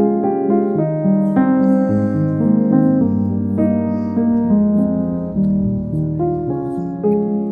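Background piano music: a melody of steady notes changing several times a second.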